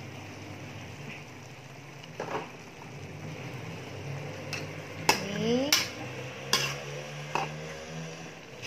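A metal spatula scraping and knocking against a wok while stirring squid pieces into frying spice paste, over a soft sizzle. The clanks come irregularly, most of them in the second half.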